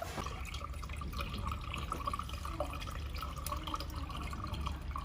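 Water trickling and dripping into a laser welder's water chiller tank as it fills to the full level, over a steady low hum.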